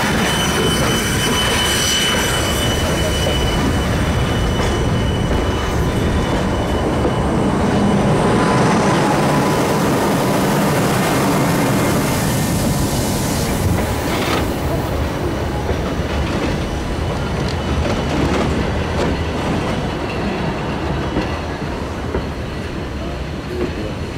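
Train running along the track, a continuous rumble of wheels on rails with a thin high wheel squeal in the first few seconds. The noise eases slightly in the second half.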